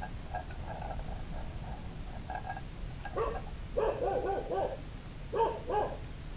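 An animal whining in short pitched calls, a few calls about three seconds in, then a wavering run, then two more near the end, over faint scattered clicks.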